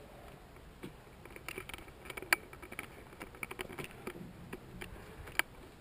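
Footsteps crunching on gritty concrete and debris, a quick irregular run of small clicks and scrapes, with two sharper clicks standing out.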